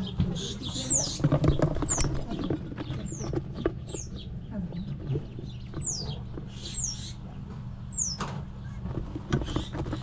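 Ducklings peeping: short, high calls that fall in pitch, roughly one a second, with light pattering in the brooder bedding over a steady low hum.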